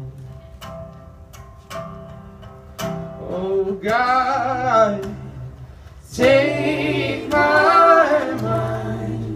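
Live folk song on resonator guitar and acoustic guitar, picked notes alone at first, then a man's voice singing long held notes over them from about three seconds in.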